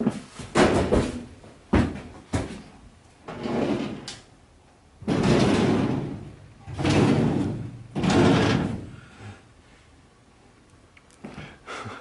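Hard objects being handled: a few sharp knocks and clatters, then three long rough scraping noises about a second apart, as old computer hardware is moved and pulled at.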